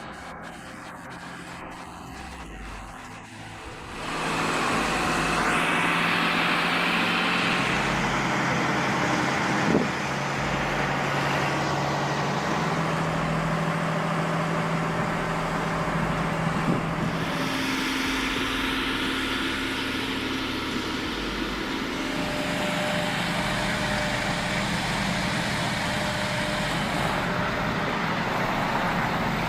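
Heavy haul truck's engine running steadily, with road and traffic noise; it gets clearly louder about four seconds in.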